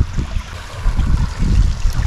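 Wind buffeting the microphone in irregular low gusts, over a steady hiss.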